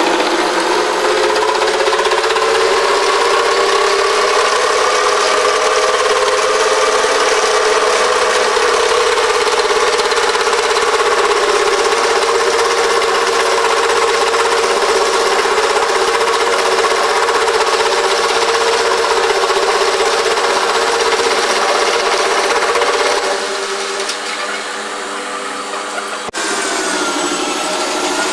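A machine motor running steadily and loudly with a pitched hum. About 23 s in it drops in level, and it is followed by a sharp click and a sliding change in pitch near the end.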